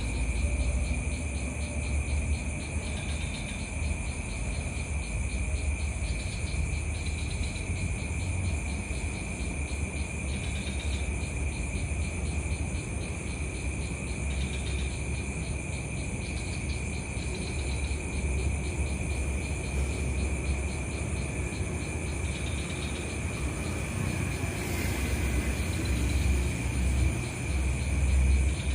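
Night insects such as crickets trilling steadily in two high continuous tones, with a shorter call recurring every few seconds. A low rumble runs underneath.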